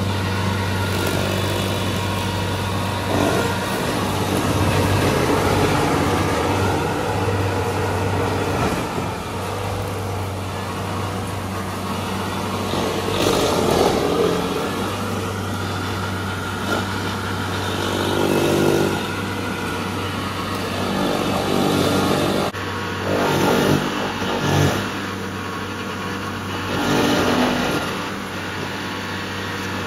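Vermeer tracked stump grinder's engine running steadily at working speed while the spinning cutter wheel grinds into a stump and the soil, the noise swelling each time the wheel bites in.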